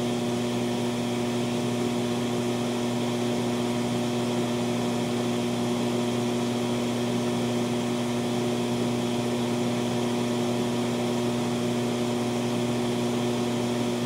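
Residual noise of a TLP Audio phonostage at 76 dB gain, played through the amplifier: a steady mains hum with several overtones over a constant hiss. The hum is ripple getting through from the entry-level TG1 power supply, which lacks enough capacitor filtering.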